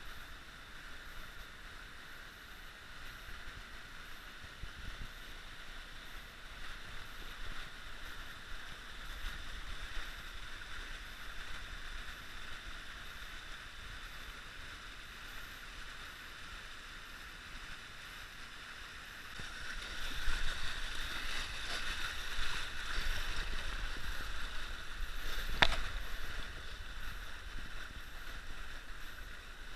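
Shallow creek water running over shale, a steady rush that grows louder about two-thirds of the way in. A single sharp click sounds near the end.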